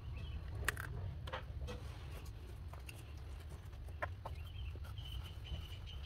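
Small hand trowel scraping and knocking in clumpy soil in a styrofoam box, with a few sharp clicks. A high, wavering bird call sounds in the background near the end.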